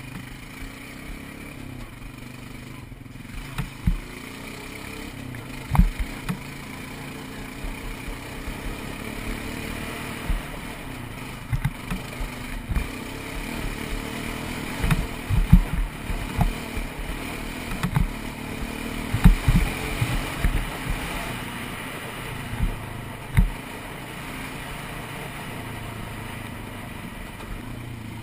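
ATV engine running steadily while riding a trail, with irregular low thumps and knocks scattered through, most between about 15 and 21 seconds in.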